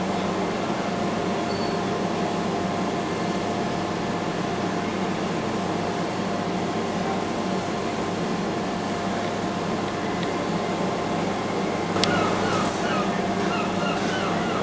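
Steady low drone and hum of a large container ship's engines with a tug running close by, heard across the water. About twelve seconds in there is a sharp click, then a run of short repeated chirps.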